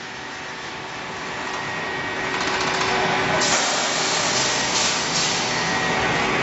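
Wire mesh welding machine running: a steady mechanical din with a few faint steady tones, and short stretches of hiss that start and stop about two and a half and five seconds in.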